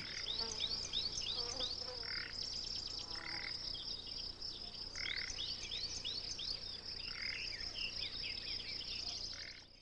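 Outdoor ambience of birds chirping in quick repeated runs over a steady high trill of insects; it cuts out just before the end.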